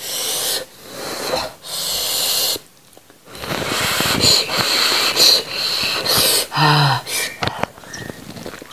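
Close-up eating sounds of a person eating goat-head meat by hand: a few sharp, hissy breaths, then a stretch of wet sucking and slurping with small clicks as the meat is pulled from the bone by mouth, and a brief hum about seven seconds in.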